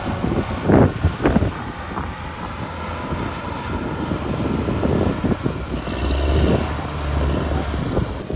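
Caterpillar D6R crawler bulldozer at work: its diesel engine running under load, with clanking from the steel tracks and a few sharp knocks in the first second and a half, and a thin high squeal throughout. The engine note deepens into a heavy drone for about a second from roughly six seconds in.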